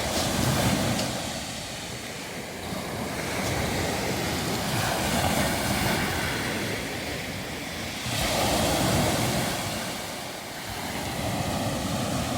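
Sea waves washing up a beach of smooth round pebbles and drawing back through them, the rush swelling and fading three times.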